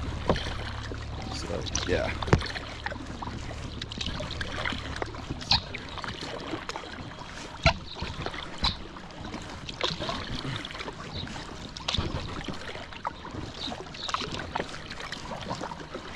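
Paddle strokes and water splashing and dripping around an inflatable packraft, with small splashes every second or two. A low steady rumble runs under the first few seconds.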